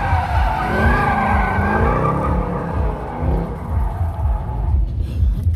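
Mercedes C63 AMG drifting: its V8 engine running hard under a wavering squeal from the spinning rear tyres, which fades out near the end.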